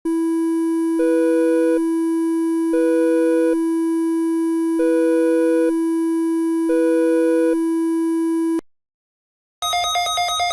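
Emergency alert alarm tone: a steady electronic tone with a higher second tone joining it four times at regular intervals. It cuts off after about eight and a half seconds, and about a second later a different, rapidly pulsing alarm tone begins.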